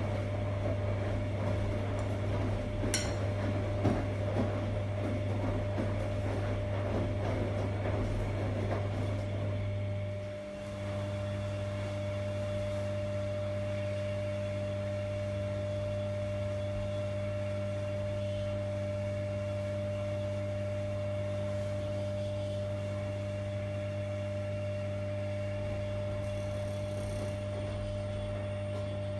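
Primus RS16 commercial front-load washing machine running: a steady motor hum with a whine over it, and laundry tumbling in the drum for about the first ten seconds. A sharp click comes about three seconds in. Just past ten seconds the sound dips briefly, then settles into a steadier hum.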